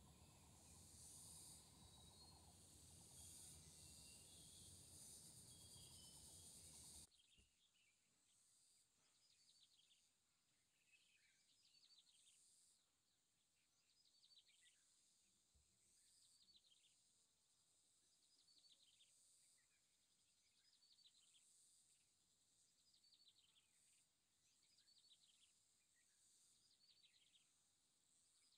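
Faint countryside ambience: a steady high insect drone throughout, with a low rumbling hiss that cuts off about seven seconds in. After that a bird repeats a short falling call about every second and a half.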